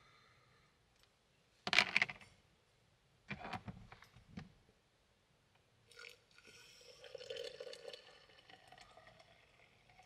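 Clunks and rattles of a small metal camp pot being picked up and handled. From about six seconds in, liquid poured from the pot into a coffee maker in a steady stream, the pitch of the filling rising slightly near the end.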